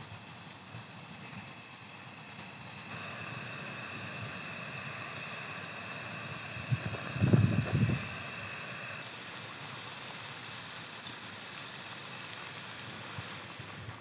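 Steady rain falling, growing louder about three seconds in. A low thump or rumble lasting about a second comes about seven seconds in.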